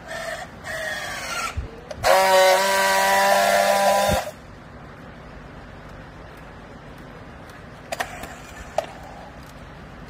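Battery-powered handheld strapping tool working plastic strap around a bale. A motor whine rising in pitch for about a second and a half as it tensions the strap, then a loud steady buzz for about two seconds as it seals the strap. Two short clicks come later.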